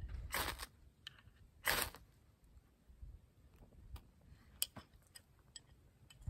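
A knife spine scraped down a ferrocerium rod, throwing sparks onto tinder to light a fire: two short scrapes about a second and a half apart, then a few faint ticks.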